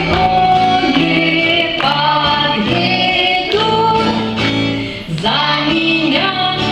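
Live performance of a children's Christian song: female voices singing a melody in held notes over guitar accompaniment.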